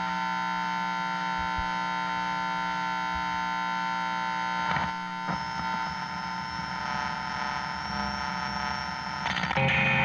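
Electronic drone of many steady tones over a hiss, with a brief swell about halfway and a thin high whine joining soon after. It steps up louder shortly before the end.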